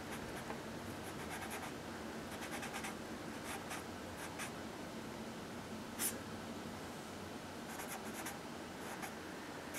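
Copic marker strokes scratching across sketchbook paper, in short groups of quick back-and-forth shading strokes. A single sharper tick about six seconds in.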